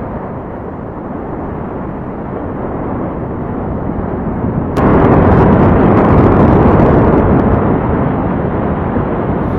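Continuous deep, noisy rumble of a volcanic eruption, slowly growing louder, then jumping abruptly louder and brighter with faint crackling about five seconds in.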